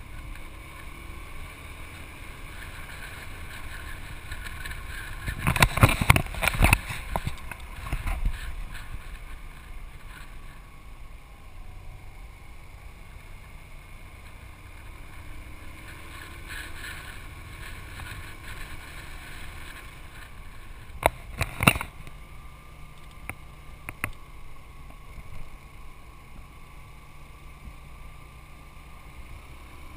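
Yamaha Vino 125 scooter's engine running at cruising speed with steady road and wind noise, heard from the scooter itself. Two spells of loud crackling noise break in, one about six seconds in and one about twenty-one seconds in.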